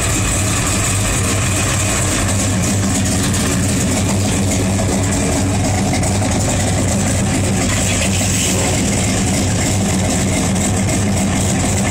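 1984 Chevrolet Monte Carlo SS's V8 engine idling steadily, shortly after a start-up following a couple of weeks unused.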